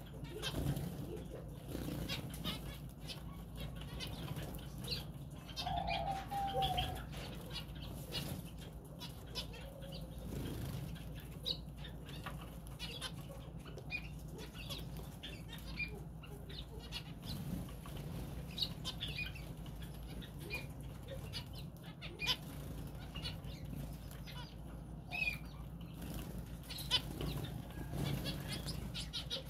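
A mixed flock of small finches, Gouldian and society finches among them, fluttering their wings and giving short, high chirps scattered throughout as they crowd around a handful of seed.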